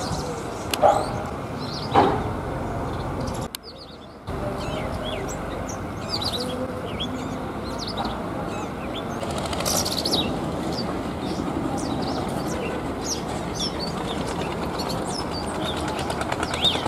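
Male Indian robin calling: repeated short, high chirps and whistled notes over a steady low background noise. Two sudden loud thumps come in the first two seconds.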